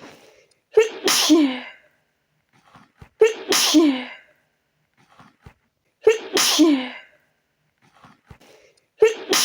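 A woman's sneezing fit: four loud sneezes in a row, about three seconds apart. Each starts sharply and trails into a cry that falls in pitch. The fourth starts just before the end and is cut off.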